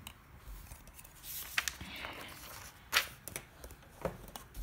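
Pages of a paper test book being turned and the book handled: paper rustling with several short sharp clicks, the loudest about three seconds in.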